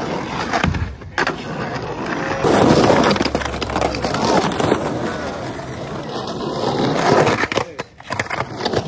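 Skateboards rolling over rough asphalt and a concrete bank ramp, with the knocks and clacks of boards and trucks hitting the concrete and the ramp's edge. Short takes are cut together, so the rolling stops and starts abruptly a few times.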